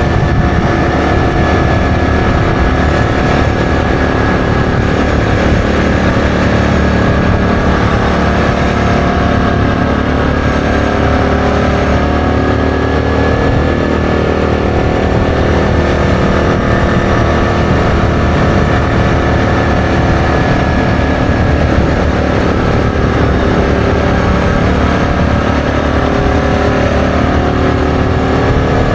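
ATV engine running steadily at cruising speed, its pitch holding nearly level throughout.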